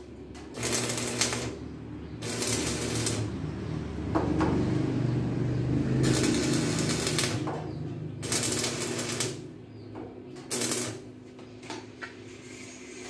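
Electric arc welding: a crackling arc struck in about six short runs, each lasting roughly half a second to a second, over a steady low hum.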